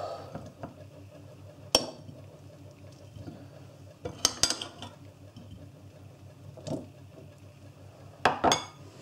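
Crockery and a metal serving spoon clinking as Brussels sprouts are served from a bowl onto a china plate. There are a few sharp clinks several seconds apart, the loudest a double clink about halfway and another near the end.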